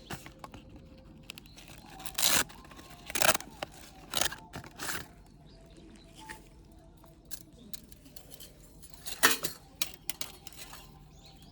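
Handling noises: a handful of short, irregular scuffs and rustles, the loudest a little over two seconds in, about three seconds in, and about nine seconds in.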